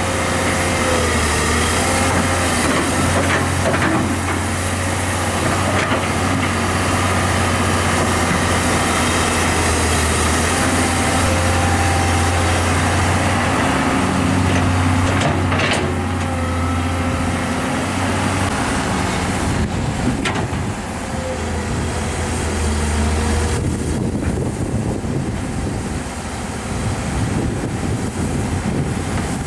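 Diesel engines of heavy earthmoving machinery running steadily at a digging site, with a sharp metallic knock about sixteen seconds in.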